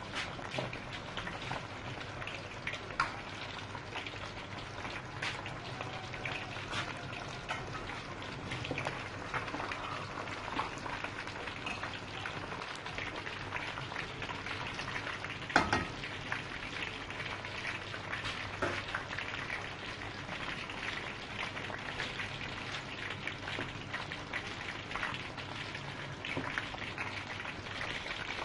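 Pre-steamed whole chicken frying in hot oil: a steady sizzle with constant fine crackling and a couple of louder pops, the loudest about halfway through, as the skin browns golden.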